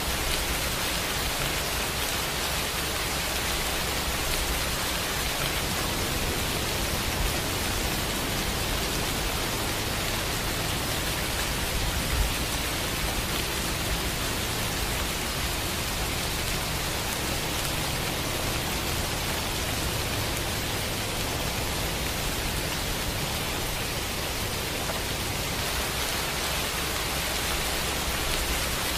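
Steady rain falling, an even hiss that does not let up, with one brief low bump about twelve seconds in.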